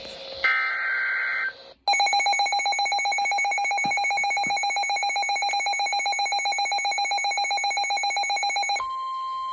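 Emergency Alert System tones announcing a severe thunderstorm warning. A short data burst is followed by a brief gap, then a loud, rapidly pulsing alert tone for about seven seconds. Near the end this gives way to a steady, quieter single tone at a higher pitch.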